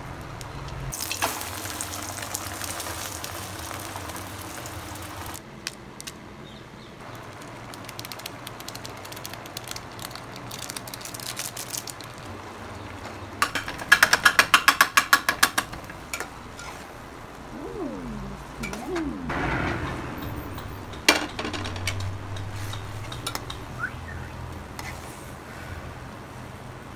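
Beaten egg sizzling in a hot black iron pan, then a steel spatula striking and scraping it in the pan in a quick run of about a dozen strokes as the egg is chopped and scrambled.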